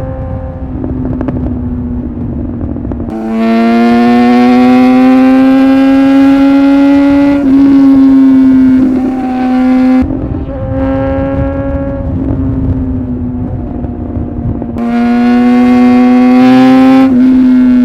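Superbike engine running at speed with wind rush. About three seconds in it opens to a hard pull, louder, with a slowly climbing pitch held for several seconds, and it eases back around ten seconds in. A second hard pull comes near the end.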